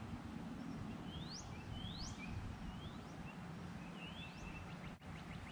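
A songbird singing a series of short, quickly rising whistled notes, several in a row about half a second to a second apart, over steady outdoor background noise.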